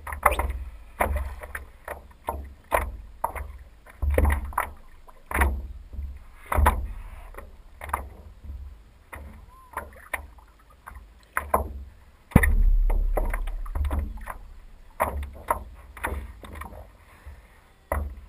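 Paddle strokes in calm lake water beside a small boat's hull, splashing about once a second, with a low rumble underneath and one sharp knock about twelve seconds in.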